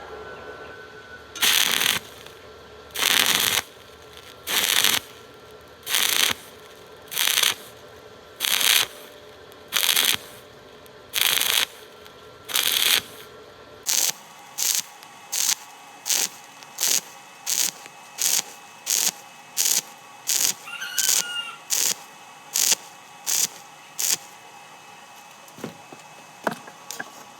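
Electric arc welding on iron in short, repeated bursts of arc crackle: the arc is struck and broken again and again to bridge a gap, first about nine half-second bursts about every second and a half, then, about halfway through, quicker short bursts nearly twice a second for about ten seconds.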